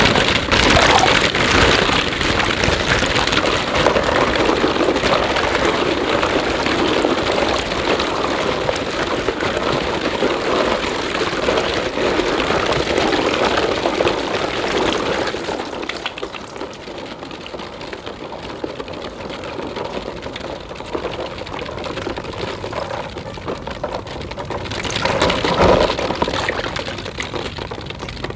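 Plastic balls clattering against each other and water splashing as a hand stirs through a tub of balls floating in water. Busy and loud for about the first fifteen seconds, then quieter, with a brief swell near the end.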